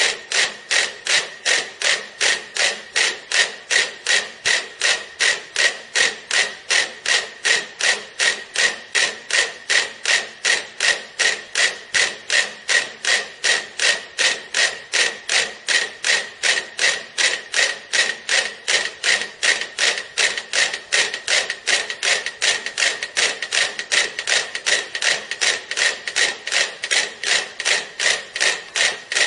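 Metronome ticking evenly, about three ticks a second, each tick a short sharp click with a bright ring to it, keeping a perfectly steady beat throughout.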